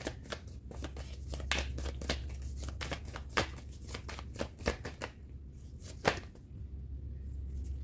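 A tarot deck being shuffled by hand: a quick, dense run of soft card slaps and flicks that thins out after about five seconds, with one sharper snap about six seconds in, over a steady low hum.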